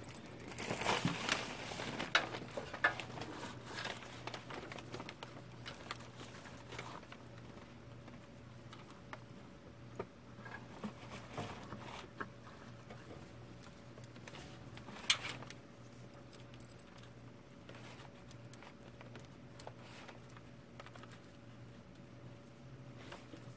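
Steel machine chain clinking and rattling as it is handled and wrapped around a CV axle joint, busiest in the first few seconds, with scattered clicks and one sharp clink about fifteen seconds in. A faint steady hum runs underneath.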